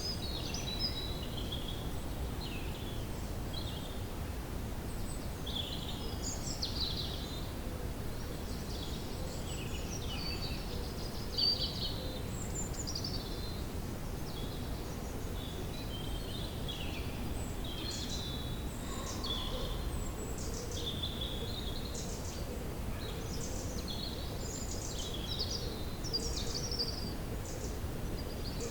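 Woodland ambience: several songbirds chirping and trilling throughout, over a steady low background rumble.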